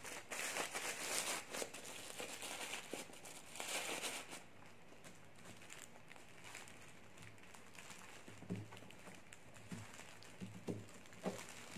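Gold foil wrapping crinkling as it is handled, for the first four seconds or so. Then it goes quieter, with a few soft taps as the dates in the tray are shifted by hand.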